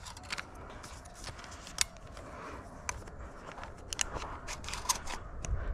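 Footsteps through dry grass and stubble, with scattered light clicks and rattles from a carried Browning shotgun being handled, and a few heavier steps near the end.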